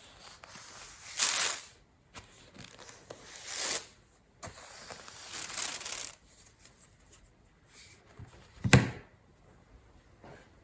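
Paper being handled, rustled and torn in three long swishes, then a single sharp knock near the end.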